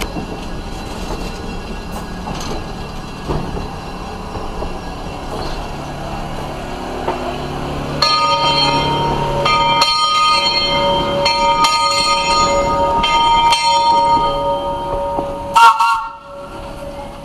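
Slow-moving train running with a low rumble, then about eight seconds in a locomotive bell starts ringing, struck over and over for several seconds. A sharp loud knock comes near the end.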